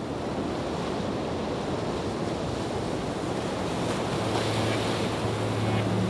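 Steady rushing noise like surf or wind. About four seconds in, a low held musical note comes in beneath it as background music starts.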